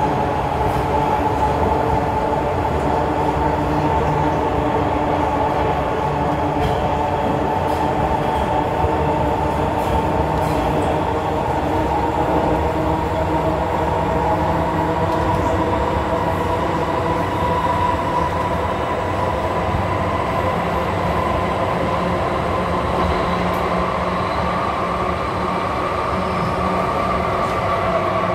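Hong Kong MTR M-Train (Metro Cammell) electric multiple unit running at speed, heard from inside the carriage: a steady loud rumble with a whine that climbs slightly in pitch near the end.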